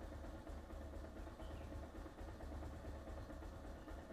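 Bajaj Pulsar 220F's single-cylinder engine idling steadily with a low rumble while it warms up, its idle speed set low, at about 1,000 rpm.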